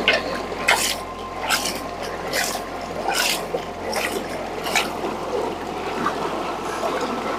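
Water and wet soil sloshing in a gold pan as it is swirled, with a splash roughly every second. This is the washing that runs the light material over the rim and leaves the heavy particles in the bottom of the pan.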